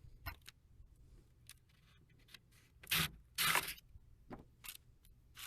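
Two short hisses from a Krylon aerosol spray paint can about three seconds in, the second a little longer, as a touch-up coat goes onto the car's wooden fins. Faint clicks and handling noises around them.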